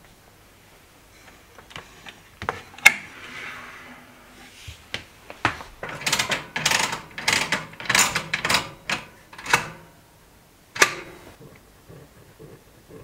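Mechanical clicks and rattles of a round kerosene heater being lit: a sharp click about three seconds in, then a busy run of clicks and rattles as the knob is turned and worked, and one last sharp click a little before the end.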